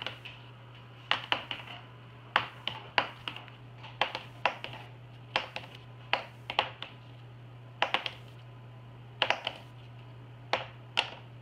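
Plastic dry-erase markers being flipped and clattering onto a hard tabletop: a string of short, sharp clicks and knocks at uneven intervals, often in quick pairs as a marker lands and tips or bounces.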